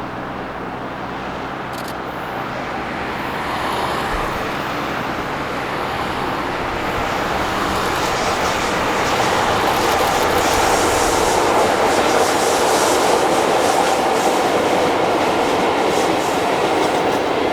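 A train running past on the rails, its wheels rushing and clattering over the rail joints. It grows louder through the middle and stays loud near the end.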